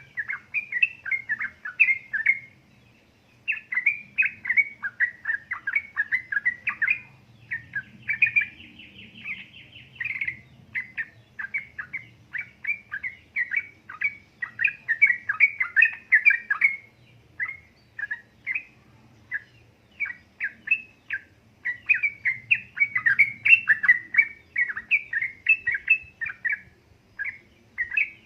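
Yellow-vented bulbul (trucukan) singing a long, rapid run of bubbly chirping phrases, with a short pause about three seconds in and a brief buzzy trill near the ten-second mark.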